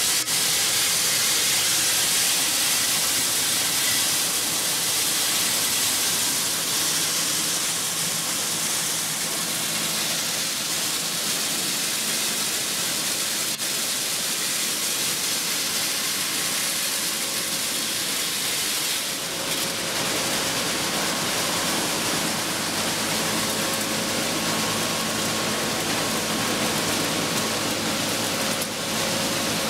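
Grain cleaning machine (6FW-G13) running on shelled corn: a steady rushing hiss, with a low machine hum joining about two-thirds of the way through.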